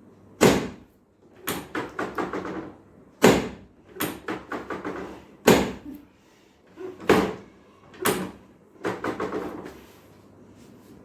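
Repeated sharp thumps, a loud one every second or so, several of them followed by a quick run of softer taps, about four a second.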